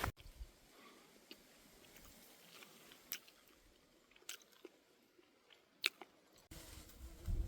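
Quiet background with about six faint, sharp clicks scattered a second or so apart.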